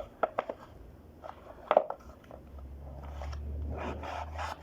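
Multi-tool pocket knife blade cutting into a cardboard box: a few sharp taps and clicks, then a steady scraping, sawing rasp as the blade works the cardboard. The blade cuts poorly; it is not very sharp.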